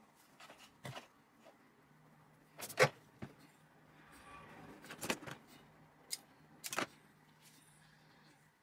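A handful of sharp, short taps and clicks at uneven intervals, the loudest about three seconds in, over a faint steady low hum that starts about two seconds in.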